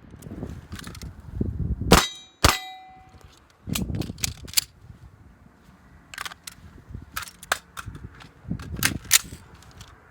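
Gunshots: two loud shots about half a second apart around two seconds in, the second followed by a short metallic ring, then a scattering of fainter cracks and clicks.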